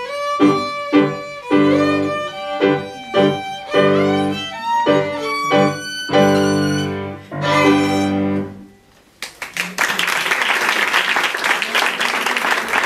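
Violin played with piano accompaniment, the piece coming to its end about eight and a half seconds in. After a short pause, the audience applauds.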